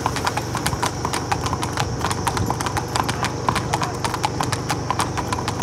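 Hooves of two Marwari horses clip-clopping on a paved road: a quick, uneven run of sharp hoofbeats from the two horses moving side by side.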